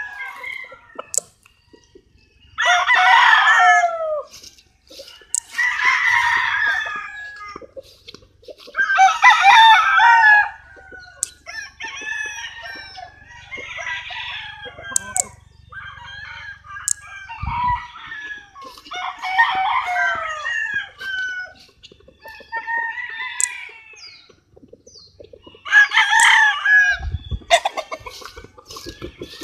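Roosters crowing one after another, about nine crows of a second or two each, the strongest early on and near the end. Two brief low thumps come partway through and near the end.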